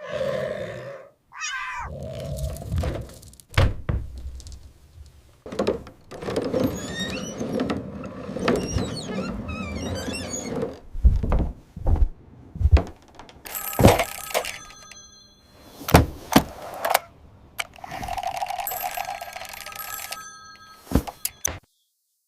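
A jumble of animated-cartoon sound effects: repeated thuds and knocks, a stretch of rapid high chirping squeaks in the middle, and bell-like ringing in two bursts later on, cut off abruptly near the end.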